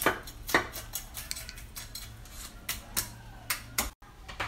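Scattered sharp clicks and knocks of a plastic mesh net bag and plastic basins being handled on a tiled floor, about nine in all at an uneven pace, over a faint steady low hum that stops near the end.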